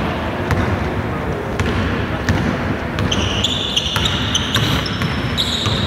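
Basketball being dribbled on a hardwood court in a large, echoing sports hall, with repeated bounces. About halfway through come short high squeaks, typical of sneakers on the floor.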